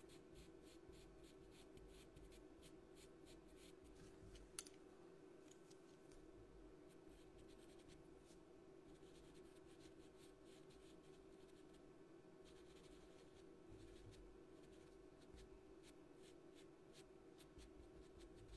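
Faint scratching of pastel pencils stroking across pastel paper in many quick, short strokes, over a low steady hum, with one sharper tick about four and a half seconds in.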